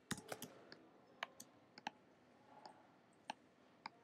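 Sharp clicks of a computer mouse and keyboard, about ten of them at uneven spacing, against near silence.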